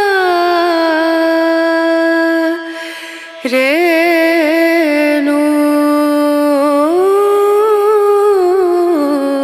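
Background music: a solo voice singing long held notes in a slow, chant-like line, with a short pause about three seconds in and a rise in pitch about seven seconds in.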